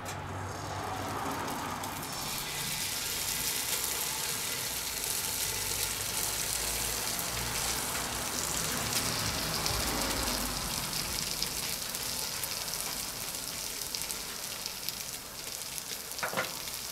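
Tomato paste sizzling in hot oil in a Dutch oven. The sizzle builds over the first two seconds, then holds steady. Two sharp clicks come near the end.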